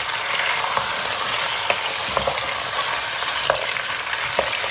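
Chicken pieces with potatoes, carrots and onion sizzling in hot oil in a pot while a wooden spoon stirs them. The spoon's scrapes and knocks come through as scattered clicks over a steady hiss.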